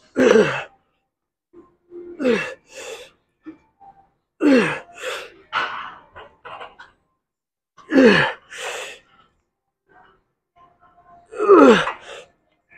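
A man grunting and groaning with strain through a set of weightlifting reps: five loud groans, each falling in pitch and followed by a breathy exhale, coming every two to four seconds.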